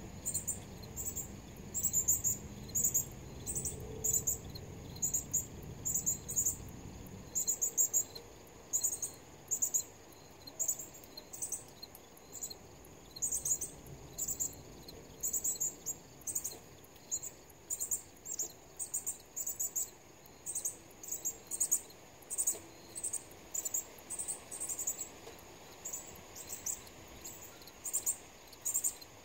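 Insect stridulating: very high-pitched chirps, each a quick cluster of a few pulses, repeating about once a second. A low rumble underneath fades out about seven seconds in.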